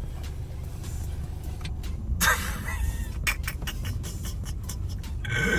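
Low steady rumble of a car running, with a few short clicks and a brief rustle a little over two seconds in.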